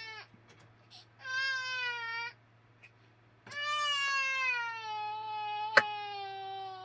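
A pet making long, drawn-out whining cries: a shorter one about a second in, then a long one whose pitch slowly falls, with a sharp click partway through it.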